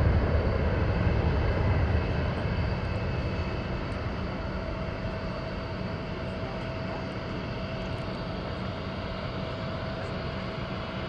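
Boeing 787 jet engines on the landing rollout, loud at first and fading over the first few seconds as the airliner slows, settling into a steady rumble with a thin whine.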